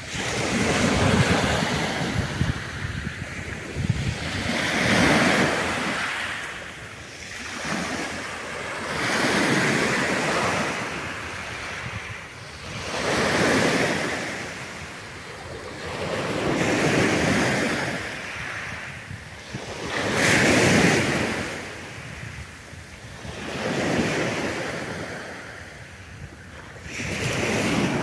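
Sea waves breaking and washing over a pebble beach, a new wave swelling and fading about every three to four seconds.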